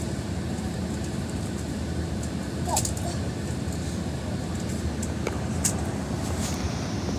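Metrolink commuter train moving through the station: a steady low rumble with a few sharp metallic clicks.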